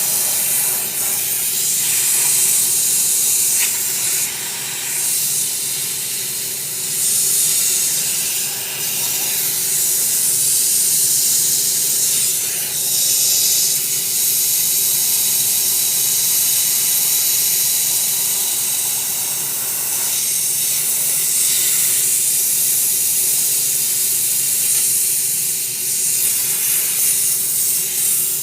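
Steady, loud hiss of a tool blowing air, with a faint low hum beneath, running without a break.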